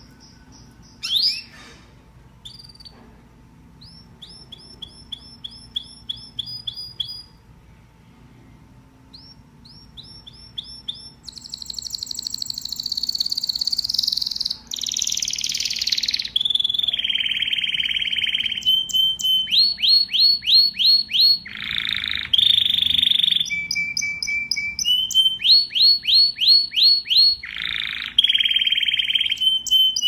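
Domestic canary song: rapid trills of repeated short, high notes, quiet and broken by pauses at first, then after about ten seconds loud and nearly continuous, moving quickly from one trill or roll to the next.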